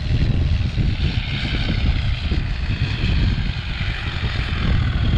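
A vehicle engine running steadily, with a heavy low rumble and a hiss above it.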